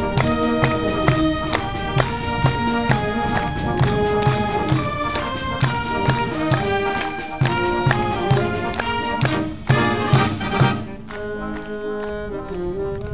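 Community concert band of brass and woodwinds playing a traditional Italian march, with a steady low march beat. About eleven seconds in the beat drops out and the band carries on more softly with held notes.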